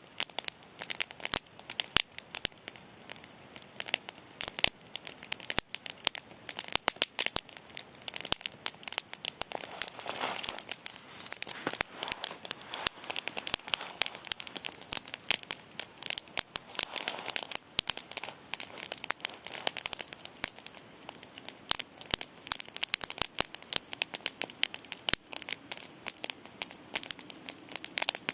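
Cedar campfire crackling, with a dense, irregular stream of sharp pops and snaps. A softer hiss swells up twice around the middle.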